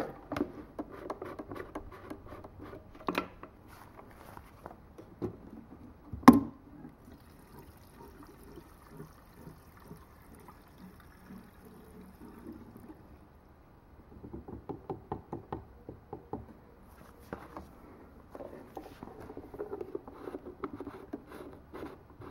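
Gasoline being poured from a plastic gas can into a small plastic fuel tank, amid scattered clicks and knocks from handling the engine and tank, with one sharp knock about six seconds in.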